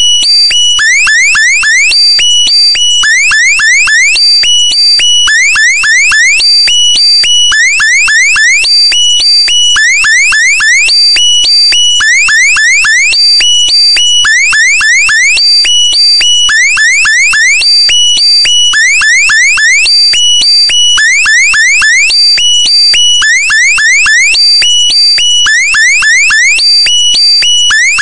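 Electronic alarm sound effect, loud, repeating about every second and a half: each cycle is a quick run of four or five rising beeping chirps over steady high tones.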